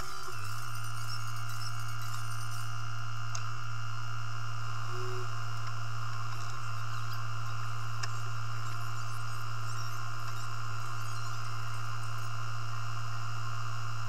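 JCB telehandler running, a steady low drone with a thin high whine over it.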